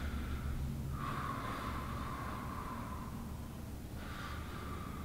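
A man taking slow, deep breaths: a long breath from about a second in to nearly four seconds, then the next beginning about four seconds in, over a low steady hum.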